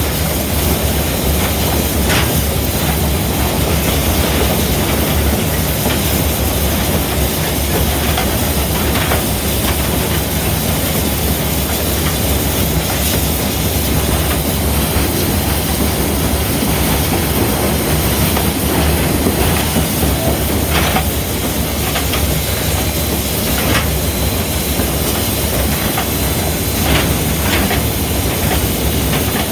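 Cab of the Southern Railway 4501 steam locomotive under way: a loud, steady rumble and hiss of the running engine, with sharp clicks now and then.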